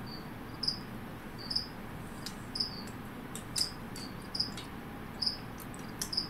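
A cricket chirping: short, high chirps repeating about once a second, with a few faint clicks alongside.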